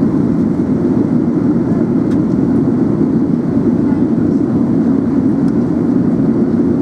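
Steady low rumble of an Airbus A380 airliner in flight, engine and airflow noise heard inside the passenger cabin, even and unchanging.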